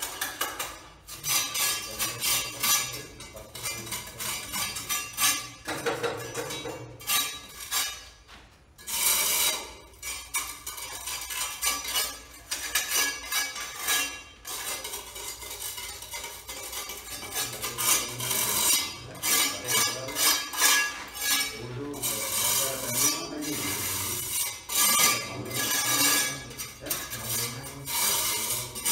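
Steel trowel scraping against a concrete floor along the base of a wall, in quick repeated rough strokes with a couple of short pauses.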